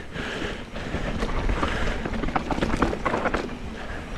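Wind rushing over a chest-mounted action camera's microphone as a mountain bike rolls down a dirt trail, with tyre rumble and a run of rattles and clicks from the bike over rough ground about halfway through.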